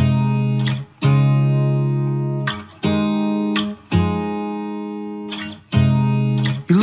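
Background music: guitar chords struck one at a time and left to ring and fade, five in turn, each cut off briefly before the next.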